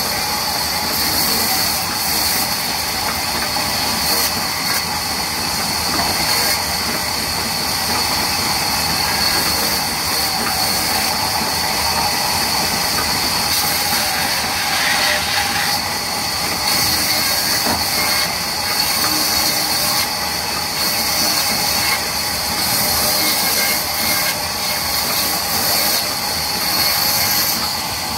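Sawmill vertical band saw running and ripping logs into planks: a steady mechanical whir of the machine with a strong high hiss from the blade cutting through the wood.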